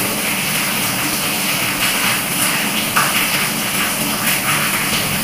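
Steady hiss of light, drizzling rain, with a small crack about three seconds in as a boiled Brazilian pine nut (pinhão) shell is peeled.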